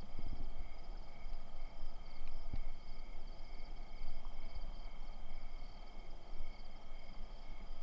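Crickets and other insects chirping steadily, several high pulsing trills layered together, over a low rumble.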